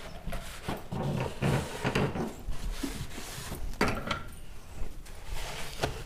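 Dry cotton cloth wiping the plastic inside of a refrigerator, irregular rubbing strokes with a couple of light knocks against the fridge.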